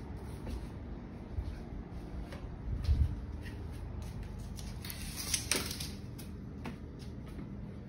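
Window blinds being drawn up, with a slatted rattle and sliding cord about five seconds in, among scattered clicks and a dull thump of the phone being handled.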